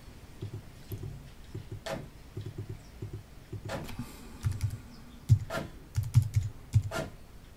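Typing on a computer keyboard: irregular quick key taps entering numbers into a calculator emulator, with a few sharper, louder key clicks spread through.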